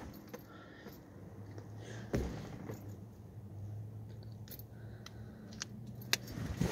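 Faint, scattered clicks and scrapes of small parts being handled, over a low steady hum.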